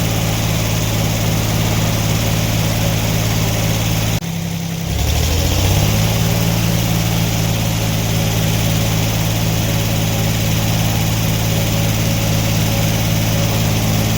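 Sawmill engine running steadily. About four seconds in it drops away abruptly, then revs back up to speed within a second or two and runs on steadily.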